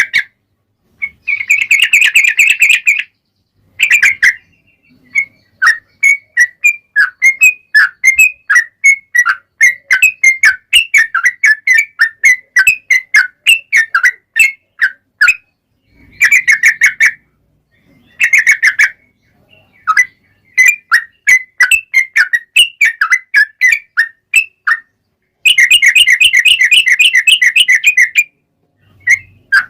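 Yellow-vented bulbul (trucuk) singing in a long, lively series of short bubbly chirps, broken by several fast trilled runs, the last and longest near the end.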